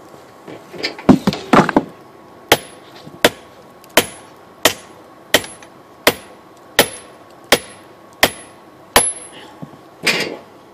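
Hand hammer forging steel on a small anvil: a few quick knocks, then a steady run of about ten blows, one every 0.7 seconds or so, each with a short high ring, and a louder clatter near the end.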